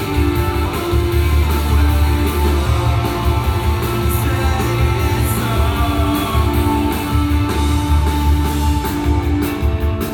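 Live rock band playing: electric guitars over bass and drums, loud and steady, heard from the audience in the room.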